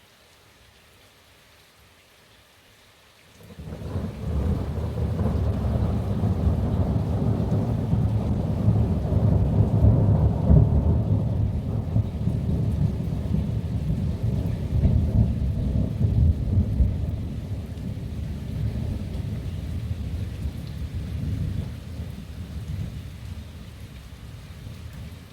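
Thunder from a night thunderstorm: after a few seconds of faint rain, a deep rumble sets in about three and a half seconds in. It builds quickly and rolls on for about twenty seconds, slowly fading near the end.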